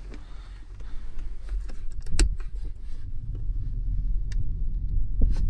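Dometic propane heater being switched on: a low, steady rumble that builds about a second in and holds, with a few sharp clicks along the way.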